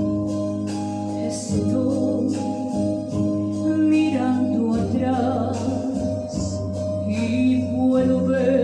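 A woman singing into a microphone over a sustained instrumental backing of held chords; the voice comes in about a second and a half in.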